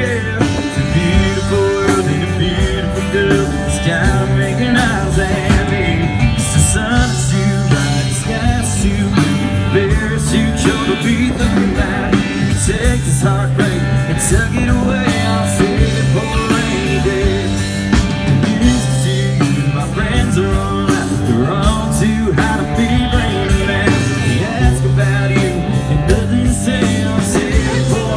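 A live band playing a rock song over a stage PA, with drum kit, guitar and singing.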